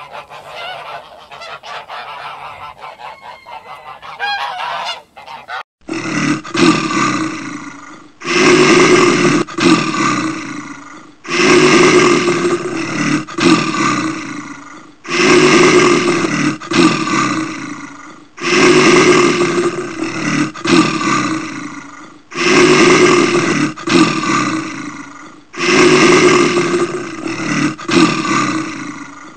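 An animal call repeated over and over, each a run of short loud cries lasting about two seconds, coming roughly every three and a half seconds; the first six seconds hold a different, quieter animal sound.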